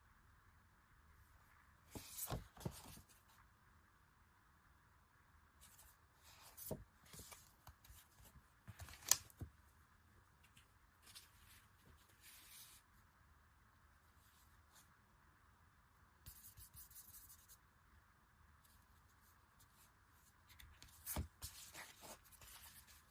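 Quiet, intermittent handling sounds of unboxing: packaging and paper goods rustling, with scattered clicks and taps as items are picked up and set down.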